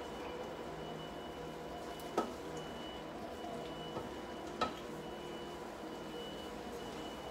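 Kitchen tongs turning broad beans in a pan, knocking sharply against the pan twice, about two seconds in and again near the middle, over a steady hum with faint steady tones.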